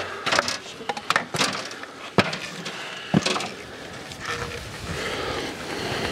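Wall cladding being trimmed by hand at the top of the wall: an irregular series of sharp clicks and short crunching cuts, then a longer scraping stretch from about four and a half seconds in.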